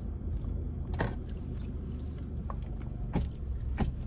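Car cabin noise at low speed: a steady low engine and road rumble, with a sharp click about a second in and two more near the end.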